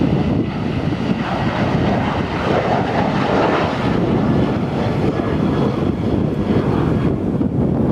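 Boeing 737's CFM56 turbofan engines at takeoff thrust as the jet lifts off and climbs away: a loud, steady jet roar, with a higher rushing noise swelling about three seconds in.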